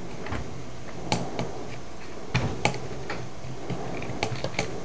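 Light irregular clicks and ticks of the plastic handle housing of a Rupes LHR21ES dual-action polisher being worked loose and lifted off by hand, about nine in all, over a steady low hum.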